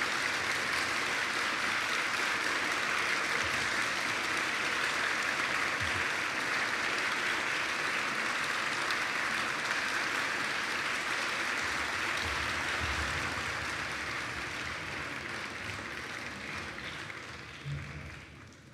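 Concert audience applauding after the piece ends, steady and then fading away over the last few seconds.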